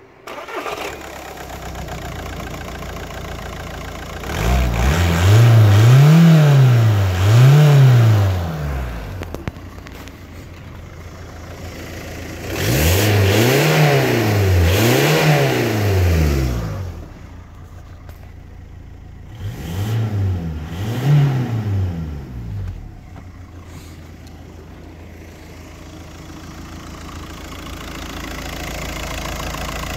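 Volkswagen Golf 5's 2.0 TDI BMM four-cylinder turbodiesel idling and being revved in three pairs of quick blips. The pitch rises and falls twice in each pair, with idle between the pairs.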